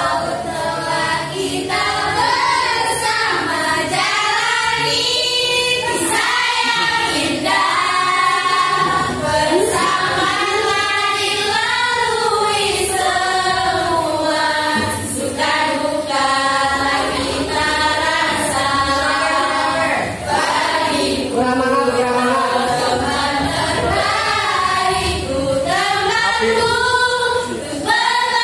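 A group of young voices singing a pop song together, sounding like a choir.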